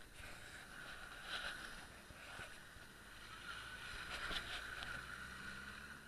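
Faint engine of an off-road 4x4 running as it drives along a muddy track, its low steady hum clearer in the second half.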